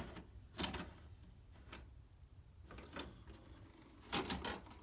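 VHS cassette going into a Samsung VCR, its tape-loading mechanism clicking and clunking: a few separate clicks, then a quick cluster of louder clunks near the end.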